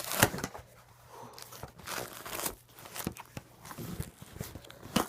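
Packaging being torn and crinkled open by hand, a string of uneven rips and crackles.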